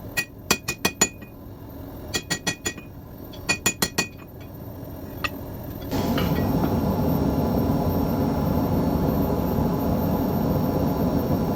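Hand hammer striking hot steel on an anvil, forging out a reverse taper: three quick runs of ringing blows, about five to a run, and one lone blow a second later. About halfway through, a steady rushing noise starts and continues.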